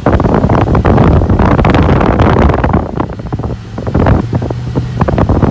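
Wind buffeting the phone's microphone inside a moving Ford Mustang, over the low drone of its engine, which holds a steady note about four seconds in.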